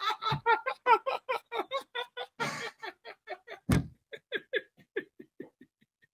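A man laughing hard, a long run of short "ha" pulses about four or five a second that grow fainter and die away near the end. A single sharp thud cuts in about midway.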